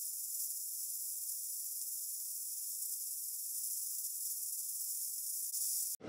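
Steady high-pitched hiss with nothing lower under it, cutting in and out abruptly.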